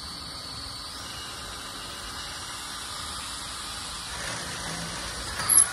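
Cordless drill running steadily as it works into the plywood end wall; its motor whine steps up in pitch about a second in, and a short, loud, high squeal comes near the end.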